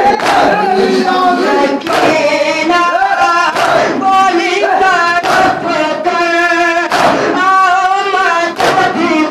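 A boy chants a nauha, a Shia lament, amplified through a microphone, with other voices joining in. Sharp slaps from chest-beating (matam) keep time about once a second.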